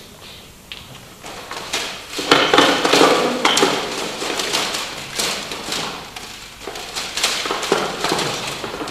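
Plastic CD cases clattering and knocking together as they are rummaged through in a hurry: a busy run of sharp clicks and taps that starts about two seconds in.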